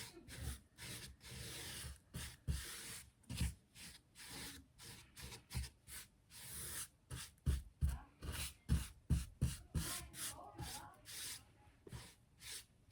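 Repeated hand strokes rubbing over wood, irregular at roughly one or two a second, each a hiss with a low thump.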